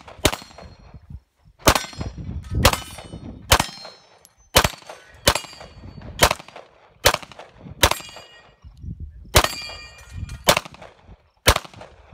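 Rapid pistol fire, about a dozen shots at roughly one a second. Many shots are followed by the metallic ring of struck steel plates on a Texas Star target.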